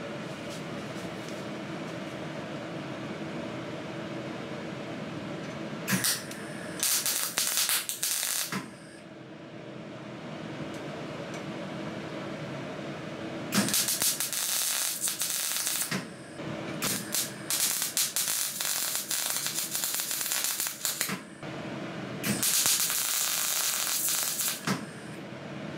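MIG welder tack-welding a steel exhaust pipe: about five bursts of arc sizzle and crackle, from half a second to about four seconds long, with a steady low hum between them.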